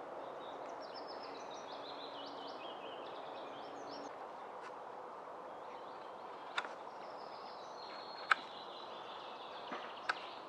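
Forest ambience: a songbird sings two phrases of quick notes stepping down in pitch over a steady background hiss. Three sharp snaps or clicks in the second half, the loudest a little past eight seconds in.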